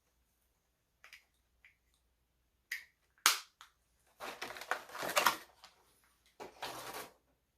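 Action-figure packaging being handled: a few light clicks, a sharp snap about three seconds in, then two stretches of crinkling and rustling.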